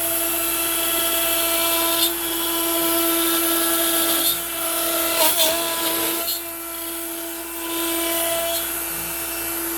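Makita router spinning a 1/4-inch upcut bit at about 18,000 rpm, a steady high whine with wood-cutting noise as the Onefinity CNC drives it through pine at 350 inches per minute. A few sharp, louder bursts come around the middle as the bit goes through a pine knot, where the machine bucks.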